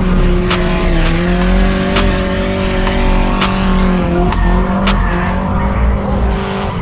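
Drift car sliding through a corner, its engine at steady high revs and its tyres squealing. Background music with a steady beat of sharp clicks about twice a second runs over it.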